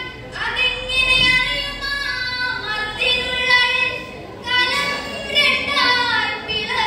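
A girl's solo voice chanting a Malayalam poem in a sung melody, unaccompanied, with long held notes that glide between pitches.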